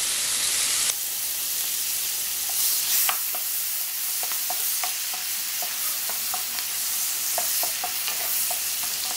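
Freshly added chopped onions sizzling in hot oil and butter in a nonstick pan, stirred with a wooden spatula that gives short taps and scrapes against the pan. The sizzle is a steady hiss that eases slightly about a second in.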